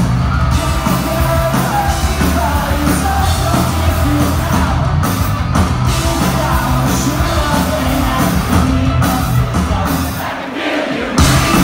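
Pop-punk band playing live through a loud venue PA, with electric guitars, bass, drums, violin and singing. About ten seconds in the bass and drums briefly fall away, and the full band comes crashing back in just before the end.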